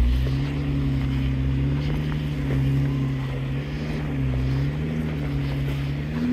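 Jeep Wrangler's engine running under light throttle as it crawls over rocks on the trail, its pitch dipping and rising a few times with the throttle.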